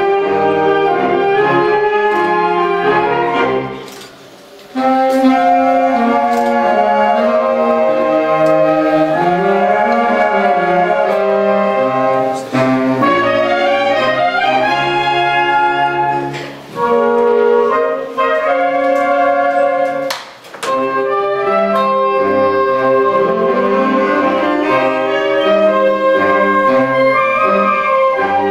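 Concert wind band of saxophones, clarinets and brass playing held chords and moving lines. The sound drops out for about a second some four seconds in, with shorter breaks near seventeen and twenty seconds.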